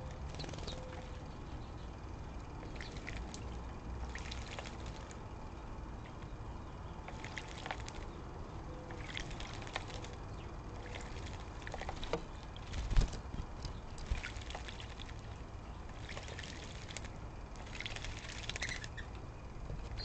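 Small birds bathing in a water-filled bucket bird bath, splashing and fluttering their wings in short bursts every second or two. One louder thump about thirteen seconds in.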